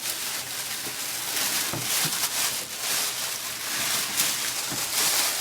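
Crinkling and rustling of packing material being handled, with a couple of soft knocks.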